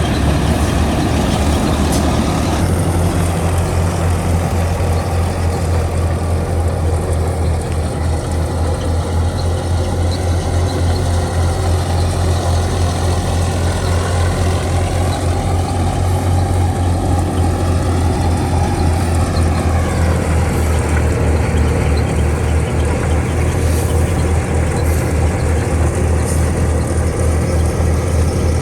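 Al-Ghazi tractor's diesel engine running steadily at full power under load, driving a wheat thresher: a loud, even, low drone with a fast regular beat.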